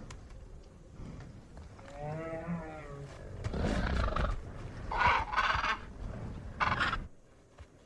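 Film sound-effect dinosaur calls: a pitched, wavering call about two seconds in, then several louder, rougher roars and bellows, over a low rumble that stops about a second before the end.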